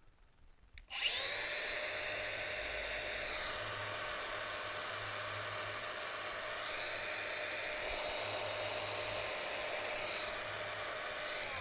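Milwaukee M18 Fuel brushless cordless angle grinder with a cutting disc, switched on about a second in and running with no load at about 6,200 RPM: a steady high whine whose pitch shifts slightly a few times, starting to wind down at the very end.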